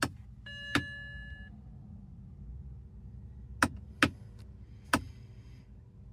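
A BMW E90 in an electrical fault sounding off: a short electronic chime near the start and several sharp mechanical clicks, four in all, the last three over about a second and a half, over a low steady hum. These clicks come from a car behaving erratically after sitting for a year and a half.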